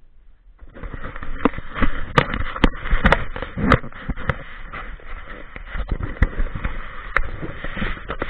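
Crackling rubbing and irregular sharp clicks of a hand stroking the dog's fur and brushing against the action camera strapped to its back, picked up right at the camera's microphone. It starts about half a second in.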